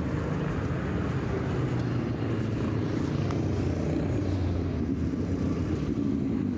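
Steady street traffic: car engines running and tyres on the road as vehicles pass, with a low engine hum strongest about four to five seconds in.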